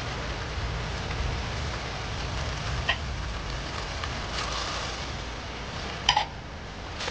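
Steady rain, with a couple of short light knocks, one about three seconds in and one about six seconds in.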